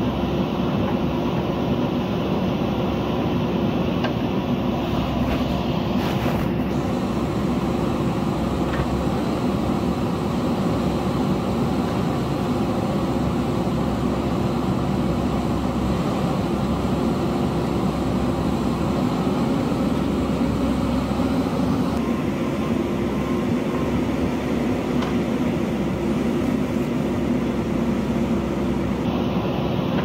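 JCB backhoe loader's diesel engine running steadily while the machine works.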